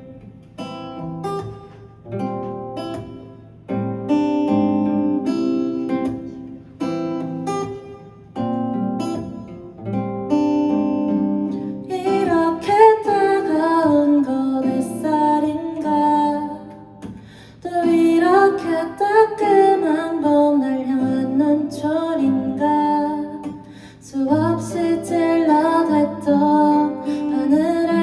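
Acoustic guitar playing an intro of separate chords, each struck and left to ring. About twelve seconds in, a voice starts singing a melody over the guitar.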